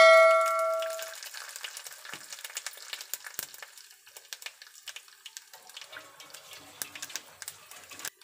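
A tempering of garlic, cumin, mustard seeds and urad dal sizzles and crackles in hot oil in a kadai as dried red chillies go in. It opens with a loud metallic ring that fades over about a second. After that, fine spluttering continues.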